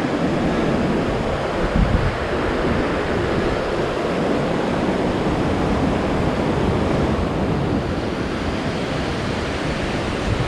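Steady rushing of mountain creek rapids, with wind buffeting the microphone in a few low gusts, one about two seconds in.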